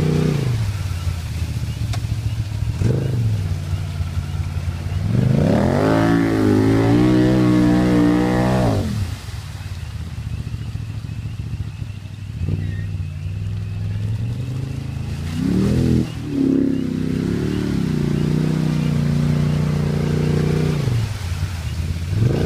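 Can-Am Maverick side-by-side's Rotax V-twin with a Two Brothers exhaust, revving hard in surges as it pulls through mud. The revs climb steeply about five seconds in and hold high for several seconds, drop back to lower running, then surge again near the middle and the end.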